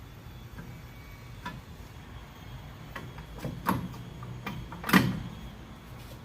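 Brake rotor, caliper and tools being handled during rear brake reassembly: scattered sharp knocks and clinks, the loudest about five seconds in.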